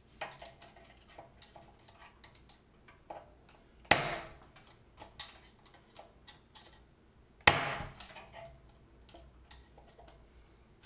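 A screwdriver scraping and clicking against the governor's plastic lock ring inside an open 6.5 hp Honda-clone engine crankcase. Two sharp hammer strikes on the screwdriver land about three and a half seconds apart, each ringing briefly, as the ring is broken loose.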